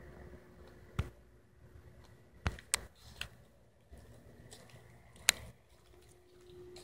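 A few sharp clicks or taps, the loudest a little past halfway, over a faint steady hum with a low tone.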